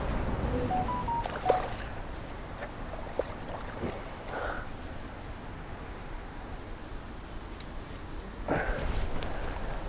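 Water sloshing around a hooked redhorse sucker being played at the surface of a creek, over a steady low rumble on the microphone, with a few sharp clicks, the loudest about a second and a half in.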